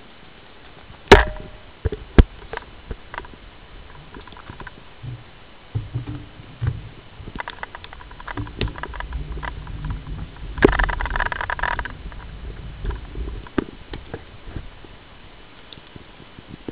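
Handheld camera riding along on a bicycle over a paved trail: two sharp handling knocks about one and two seconds in, then low wind rumble on the microphone with scattered bike rattles and clicks, and a brief burst of rapid clicking and hiss near the end of the middle.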